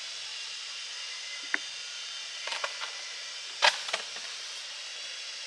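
A steady high hiss of background noise with a few sharp clicks and snaps, the loudest a little past halfway.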